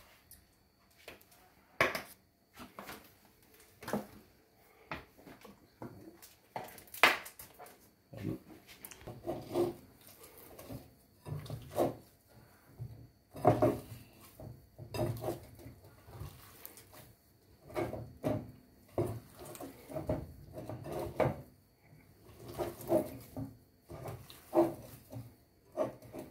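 Hands mixing and kneading maize arepa dough in a ceramic bowl on a stovetop: irregular soft thuds and squelches, about one or two a second after the first few seconds, with a few sharper knocks of the bowl early on.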